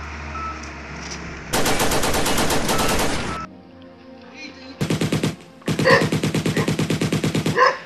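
Rapid automatic gunfire in three bursts, a long one about a second and a half in, a short one near five seconds and a long one after it. Each burst is a fast run of evenly spaced shots.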